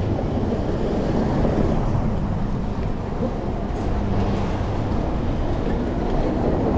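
Steady rumbling wind and road noise on a GoPro Hero 10's microphone while riding a bicycle, with traffic around. There is a brief click about four seconds in.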